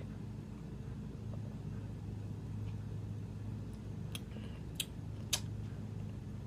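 Low steady room hum with a few faint mouth clicks and lip smacks about four to five and a half seconds in, as a drink is sipped and tasted.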